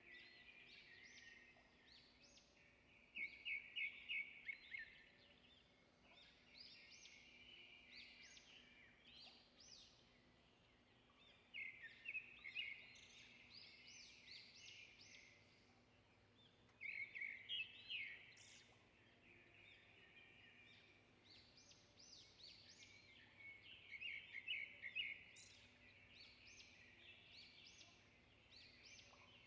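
Faint birdsong: bursts of rapid high chirps and trills that come back every several seconds.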